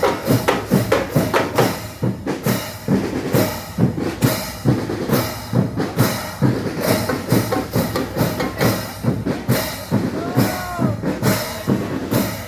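A band playing drum-led music: a steady, even beat of drum strikes runs throughout.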